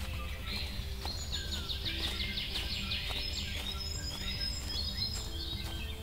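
Woodland songbirds chirping, with one bird giving a rapid trill of quick repeated notes from about one to three seconds in, over a steady low rumble of forest ambience.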